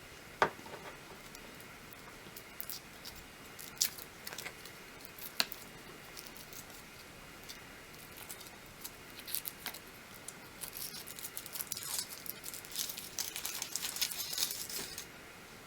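Foil wrapper being peeled by hand off a Kinder Surprise chocolate egg: a few separate sharp crinkles and clicks, then a longer stretch of dense crinkling near the end.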